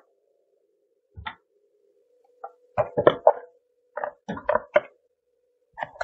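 Hard plastic vacuum attachments (brush heads, nozzles, a crevice tool and extension tube) being handled and set down on a tabletop: a series of light clicks and knocks, one about a second in, then clusters near the middle and at the end.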